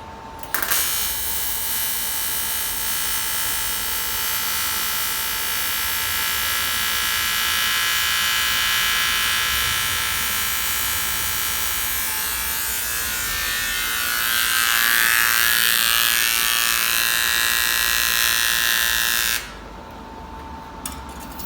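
AC TIG welding arc on aluminium buzzing steadily. It strikes sharply about half a second in, turns rougher and louder about two-thirds of the way through, and cuts off suddenly near the end, followed by a few faint clicks.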